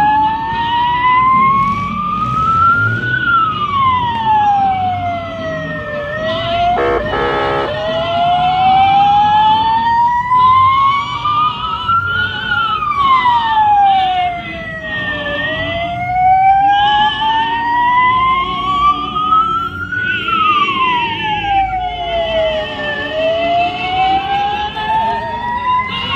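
Several emergency-vehicle sirens sounding together: one wails in slow rising and falling sweeps about every eight seconds, while a faster warbling siren runs above it. A brief pulsing horn blast comes about seven seconds in.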